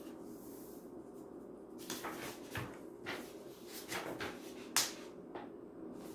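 Pages of a book being leafed through: a series of soft paper rustles and flicks, with one sharper flick about five seconds in, over a faint steady hum.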